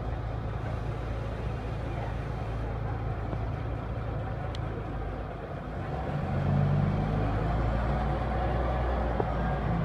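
Route bus engine running as the bus drives off, growing louder about six seconds in as it accelerates away.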